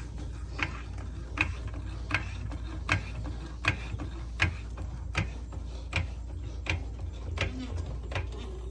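A jack being pumped to raise the fuel tank back up under the truck, with a sharp click at each stroke, about one every three-quarters of a second.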